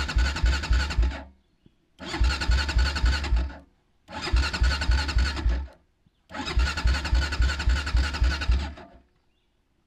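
Honda 400EX's single-cylinder engine cranked on the starter in repeated tries, a steady chug of about six pulses a second each time, and never firing. The first try ends about a second in, and three more follow, each a second and a half to two and a half seconds long. The owner takes it for no spark.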